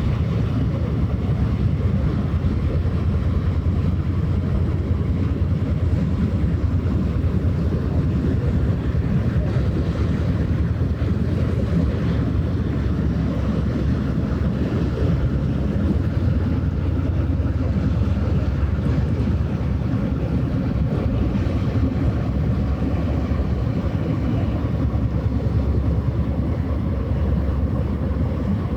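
Steady low rumble of a passing vessel's engine, mixed with wind buffeting the microphone and the wash of water.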